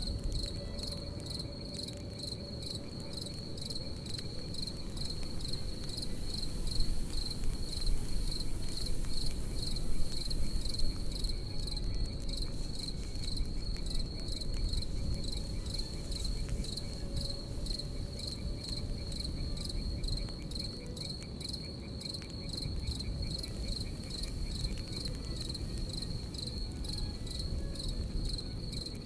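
Crickets chirping in a steady pulsing trill, over the low rumble and crackle of a campfire that swells for a few seconds about a third of the way in.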